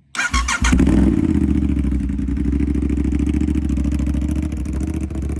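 2022 Aprilia Tuono 660 Factory's parallel-twin engine, breathing through a full SC Project CRT titanium exhaust, cold-starting: a brief burst of starter cranking, the engine catches almost at once, flares up about a second in, then settles into a steady idle.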